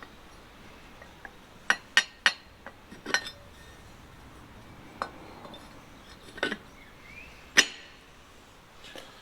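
Steel tool parts and bolts clinking and knocking: about seven sharp metallic clinks spread out, the loudest near the end, as a home-made cylinder-bank drawing clamp is bolted onto a V12 engine's cylinder bank.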